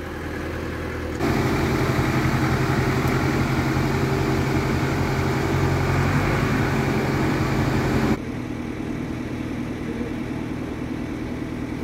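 A motor running steadily in the background. It gets abruptly louder about a second in and drops back abruptly near eight seconds.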